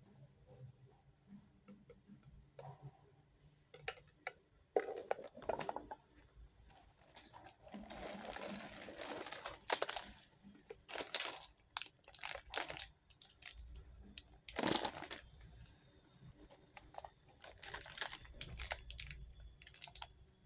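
Plastic bags and sweet wrappers crinkling and rustling as they are handled, with scattered clicks and light knocks. There is a longer run of rustling a little before the middle.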